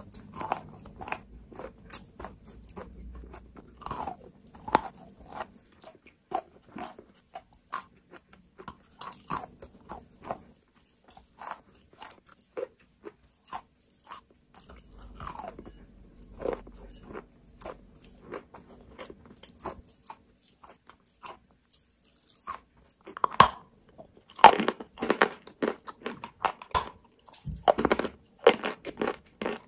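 Close-up biting and chewing of pieces of edible chalk: a run of crisp, dry crunches and chewing clicks. The crunching grows much louder and denser near the end.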